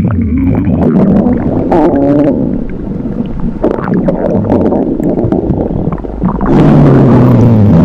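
A hungry stomach growling loudly: continuous gurgling broken by long, low rumbles that bend in pitch. It gets much louder about six and a half seconds in, with a long growl that falls in pitch near the end.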